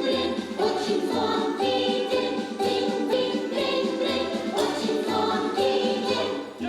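Background music from a stage musical with a steady beat, about two beats a second, and bright sustained notes.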